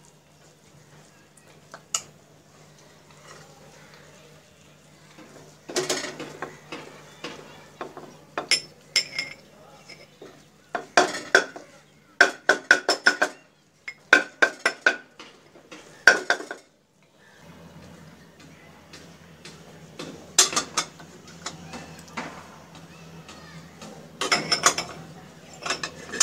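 Ceramic tea cups knocking and clinking against one another and a hard surface as they are handled and set in place, in several quick clusters of sharp clicks.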